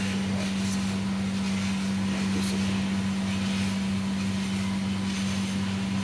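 Steady low electrical hum of an energized AC contactor, still pulled in while the oil differential pressure switch's time delay runs before it trips.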